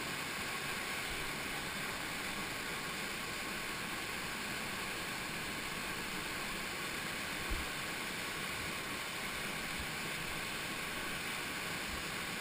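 Steady rush of a waterfall pouring over rock right beside the microphone, with one brief low bump about seven and a half seconds in.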